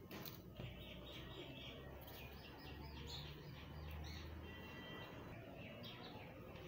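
Faint bird chirping: a run of short, quick high notes, some rising, over a low steady hum.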